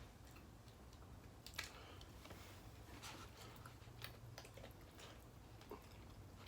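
Faint chewing and small scattered clicks of eating, over a low steady hum.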